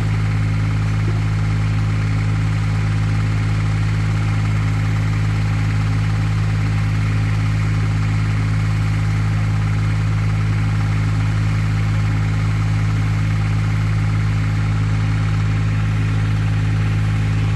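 An engine idling steadily, a low even hum that never changes speed or level.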